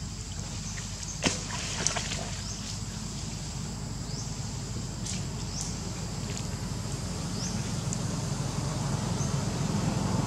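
A steady low, engine-like drone that grows slightly louder near the end, with two sharp clicks about a second in and half a second later, and a few short high chirps, like small birds, over the top.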